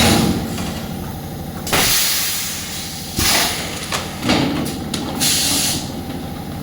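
Bottle blowing machine running: a steady mechanical hum with sharp blasts of compressed air hissing out every second and a half to two seconds as the moulding cycles repeat.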